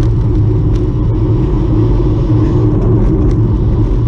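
Steady, loud low rumble of riding a bicycle, road and wind noise, with a few faint ticks.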